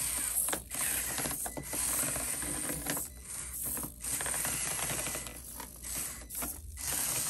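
Basher Rocksta mini rock crawler's electric motor and gears whirring as it climbs rock in four-wheel steer. The whir comes in stretches broken by short pauses as the throttle is let off and applied again.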